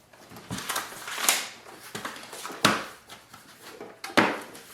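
Plastic paper tray of a laser printer being handled: a few sharp clicks and knocks, several seconds apart, as the paper size guides are slid and set, with light rustling between.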